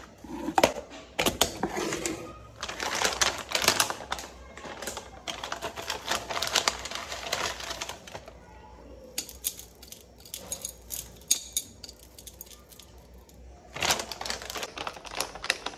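Plastic muesli packet crinkling and rustling as it is handled. It comes in several bursts of dense crackles, with a quieter stretch in the middle.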